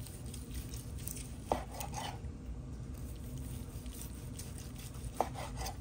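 A large knife slicing through a crusty smoked beef tenderloin on a plastic cutting board. There are many faint small clicks as the blade cuts, and the edge knocks sharply on the board about a second and a half in and again near the end.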